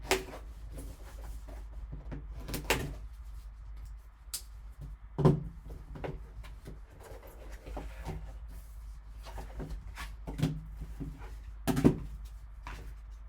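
Trading-card packaging being handled and opened by hand: scattered knocks, scuffs and rustling, with sharper knocks a few times.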